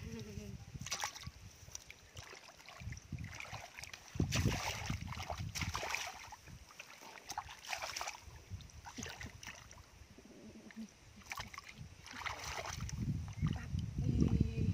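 Hands and bare feet squelching and splashing in wet mud and shallow muddy water, in irregular bursts, while digging for fish.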